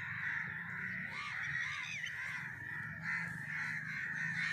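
Many birds calling at once in a steady, unbroken chorus.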